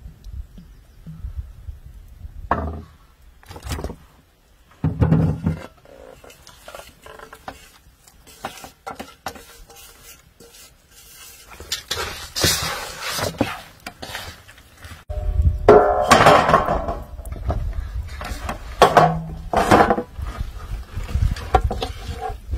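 Hand food preparation in metal bowls: oil poured over chopped herbs and spices, then fish pieces and tomatoes mixed by hand and tipped from an aluminium bowl into a pan. The sound is irregular handling knocks, rustles and clinks of metal bowls, busier in the second half.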